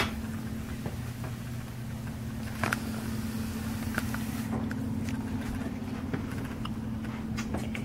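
A steady low mechanical hum, with a few light clicks and knocks over it.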